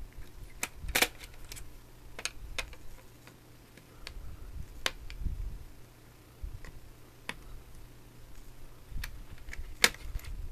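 Irregular light clicks and ticks of a screwdriver working tiny screws out of a corded telephone's circuit board and plastic housing, with a low rumble of the parts being handled; the sharpest clicks come about a second in and near the end.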